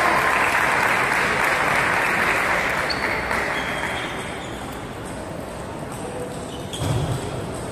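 Spectators applauding, the applause dying away over the first few seconds, with a dull thump near the end.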